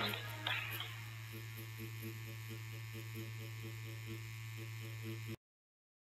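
Defenderr Fenix S wireless tattoo pen running, its motor buzzing steadily with a low hum as the needle stipples shading into latex practice skin. The buzz cuts off abruptly about five seconds in. Guitar music fades out during the first second.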